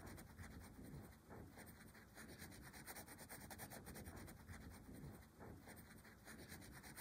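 Faint scratching of a graphite pencil sketching on paper, in quick, continuous strokes.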